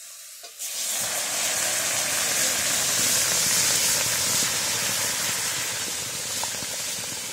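Water poured into a hot steel wok of frying leaves, hissing loudly as it flashes to steam. The hiss starts suddenly under a second in and stays steady.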